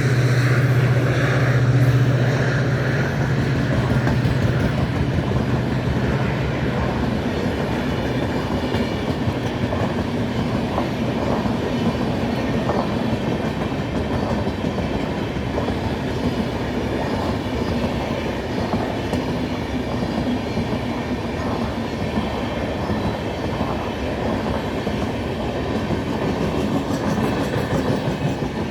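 WDP4D diesel locomotive's 16-cylinder two-stroke EMD engine humming as it passes, its hum fading over the first several seconds. Then the express's coaches roll steadily by, wheels clacking over the rail joints.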